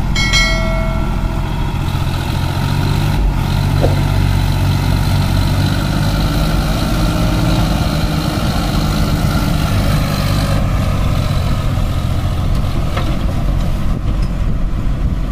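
Diesel farm tractor engine running steadily under load as it pulls a trolley loaded with sugarcane through deep mud. A brief high whistle-like tone sounds right at the start.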